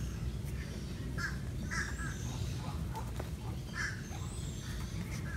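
Several short bird calls in an aviary: one a little over a second in, another near two seconds and a third near four seconds, with fainter high chirps between, over a low steady rumble.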